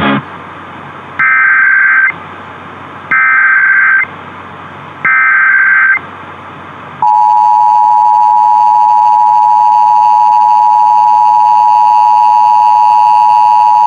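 Emergency Alert System Required Monthly Test received over AM radio: three data-burst screeches of the SAME header, each about a second long, then about seven seconds in the steady, loud two-tone EAS attention signal (853 and 960 Hz) starts and holds.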